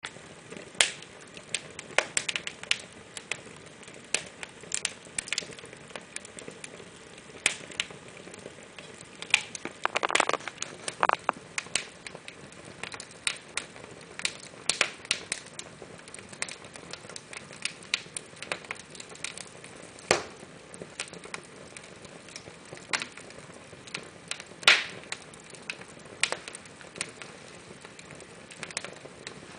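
Fire burning in a fireplace, crackling: irregular sharp pops over a faint steady hiss, with a denser flurry of crackles about ten seconds in.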